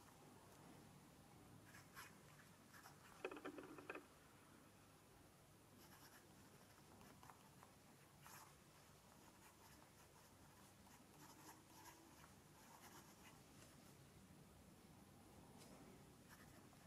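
Faint scratching of a Montblanc fountain pen's 18-carat white-gold medium nib writing on notebook paper, in short strokes with pauses. A louder short scrape comes about three seconds in.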